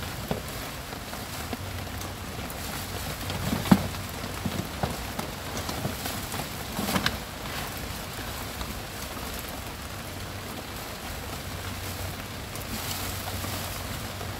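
Steady rain falling, with a few short sharp clicks and rustles on top, the loudest about four seconds in and another cluster about seven seconds in.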